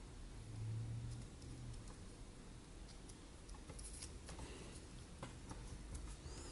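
Faint handling of small cardboard model-kit pieces: scattered light clicks and taps as fingers press a glued pipe section together and pick up the next parts.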